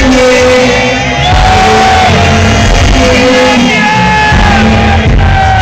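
Live reggae band with a singer holding long, gliding notes over heavy bass. The phone recording is very loud and distorted.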